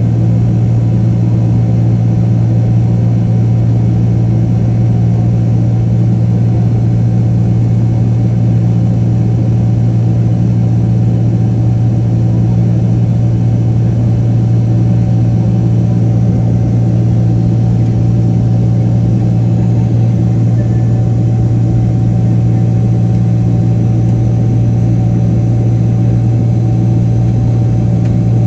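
Boeing 767-300ER cabin noise from a window seat beside the engine during the climb: the jet engine runs at a steady, loud drone with a strong low hum and a few steady tones over the rushing air.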